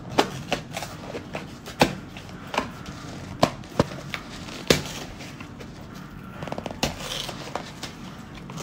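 Irregular light clicks and taps as a cardboard box of instant rice is handled and tipped over a plastic storage container to fill it with rice.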